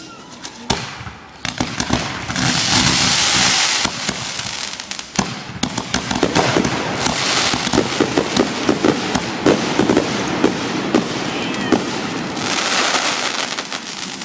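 Fireworks show: a steady barrage of sharp bangs and pops, quickening into rapid volleys in the middle, with three spells of dense crackling.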